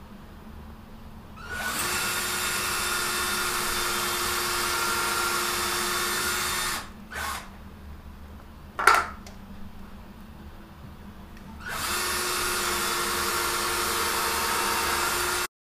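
Cordless drill running at a steady speed as it bores into the top of a table leg: a run of about five seconds, a short blip, then a second run of about four seconds near the end. A single sharp knock comes between the runs.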